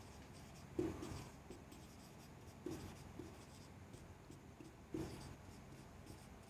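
Whiteboard marker writing on a whiteboard: faint scratching strokes, with a soft tap three times as the tip meets the board, about a second in, near the middle and about five seconds in.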